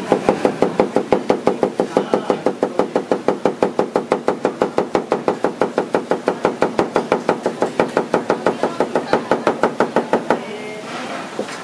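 Large kitchen knife rapid-chopping cucumber into fine strips on a plastic cutting board: a fast, even run of about six knocks a second that stops near the end.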